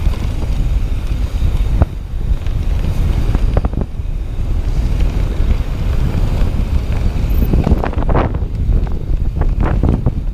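Wind rushing over the microphone of a riding mountain biker's camera, a loud steady rumble, mixed with the rattle of the bike on the trail and a few sharp knocks.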